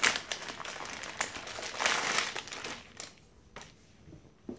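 A crinkly plastic sandwich-cookie package rustling and crackling as it is handled and pulled open, busiest in the first couple of seconds, then a few short rustles.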